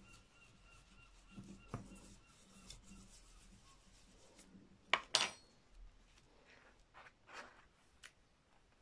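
Back of a spoon rubbing over printing paper on an inked lino block, burnishing the print: a soft, repeated scraping, with two sharp clicks about a second and a half and five seconds in. Near the end, paper rustling as a corner of the print is lifted.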